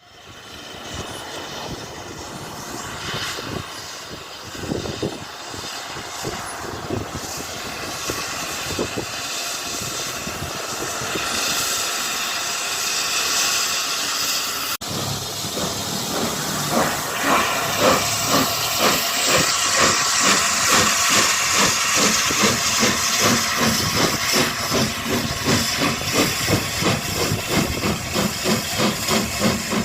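Peppercorn A1 Pacific steam locomotive 60163 Tornado's three-cylinder engine setting off: loud hissing steam at first, then from about halfway in the exhaust beats start and quicken as the engine gets under way.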